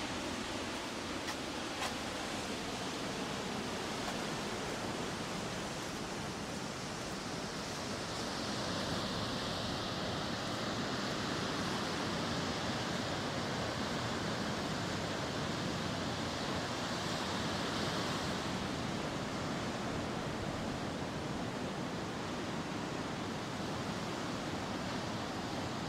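Ocean surf washing on the shore: a steady rush of water that swells louder for about ten seconds in the middle.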